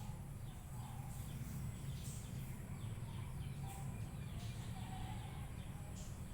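Faint, short bird chirps scattered over a steady low background rumble.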